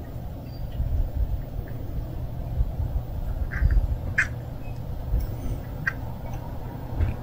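Kitten eating from a bowl, with a few short, sharp crunches as it chews, over a steady low rumble.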